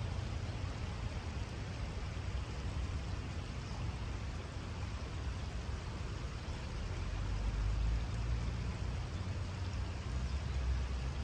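Shallow river water flowing steadily over a stony riffle, a constant rush. Beneath it runs a low rumble that grows louder about seven seconds in.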